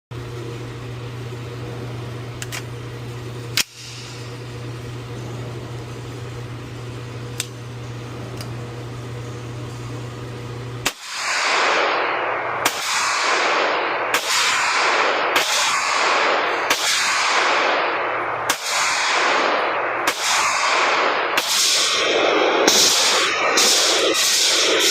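Airsoft pistol firing. A few sharp clicks over a steady low hum come first, then from about eleven seconds in a loud series of sharp cracks, each trailing off in a hiss, coming faster near the end.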